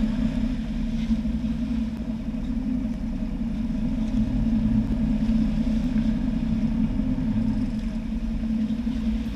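A sportfishing boat's engines running steadily, a low even hum, with churning water beside the stern.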